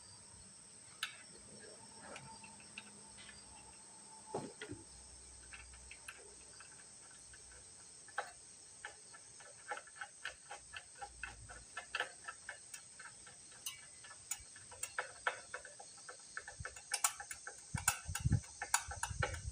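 Small irregular clicks and taps of metal parts and tools being handled while the governor linkage of a small portable generator is refitted, coming thicker near the end with a couple of low thumps.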